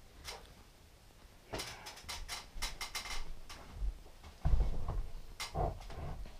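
Scattered clicks and knocks, then heavier low thumps, as a ram shoulder mount is handled and fitted against the wall onto its hanging screw.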